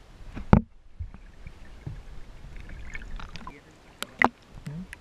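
Water sloshing and splashing around a partly submerged action camera, with a sharp knock about half a second in and another just after four seconds.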